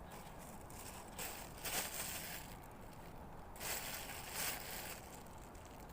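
Irregular rustling and crunching noise in uneven bursts, strongest in two stretches between about one and five seconds in.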